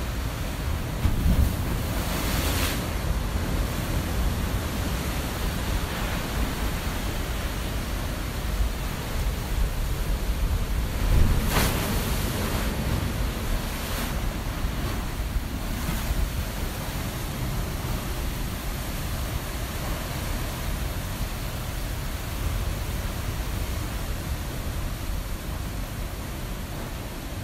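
Ocean surf washing in, a steady rushing that swells louder about two seconds and again about eleven seconds in.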